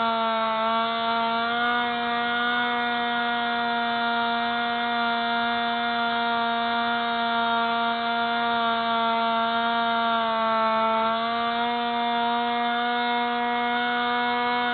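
Electric motor and propeller of a Spy Hawk RC model plane running steadily, heard from its onboard camera as a loud, even whine. The pitch dips slightly about half a second in and again around ten seconds in, as the throttle eases off during low passes.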